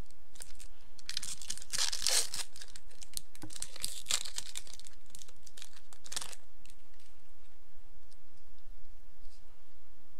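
A Battle for Zendikar booster pack's foil wrapper being torn open and crumpled by hand. The crackling comes in bursts from about a second in to about six seconds in, then fades to a few faint crinkles.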